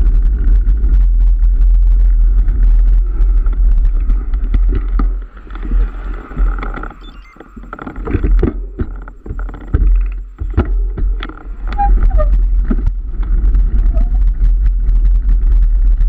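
Wind buffeting the microphone of a camera riding along on a bicycle, a loud steady low rumble with road noise. It eases for a few seconds midway, where scattered clicks and knocks stand out.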